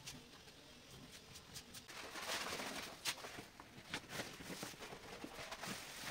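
Faint rustling and crinkling of a wallpaper sheet as it is handled and pressed flat by hand over a wooden window frame, with a few sharp clicks and light taps.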